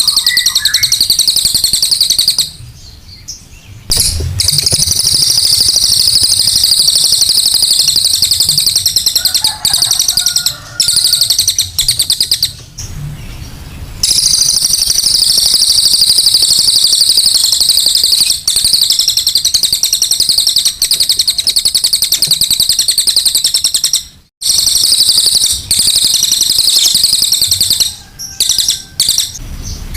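Cililin songbird singing its rapid, high-pitched 'tembakan' (machine-gun) song: long runs of fast repeated notes broken by a few short pauses.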